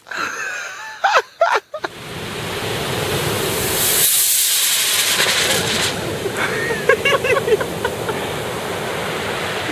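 Surf washing steadily on a shingle beach, with a strong hiss for about two seconds from around four seconds in as a firework rocket goes up from the beach. Two short sharp cracks sound about a second in.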